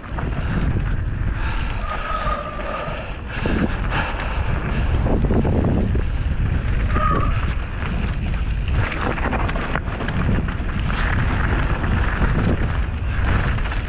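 Mountain bike running fast down a dirt and gravel singletrack: tyre noise with the frame and chain rattling over bumps, and wind buffeting the microphone. Two brief high squeaks, about two and seven seconds in.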